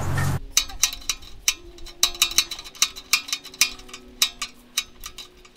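Breaker bar and spark-plug socket clicking and ticking irregularly, several light metallic clicks a second, as the just-loosened spark plug is unscrewed from a Honda GX390 engine. A brief burst of handling noise comes right at the start.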